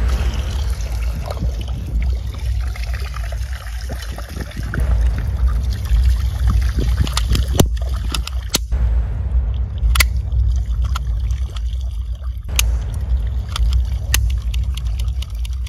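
Muddy water sloshing and trickling as plastic toy guns are moved about in a shallow puddle, over a steady low rumble. Several sharp clicks come in the second half as a plastic toy revolver is handled.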